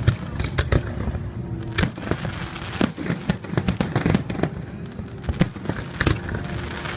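Aerial fireworks bursting in quick succession: many sharp bangs and crackles close together with no gaps.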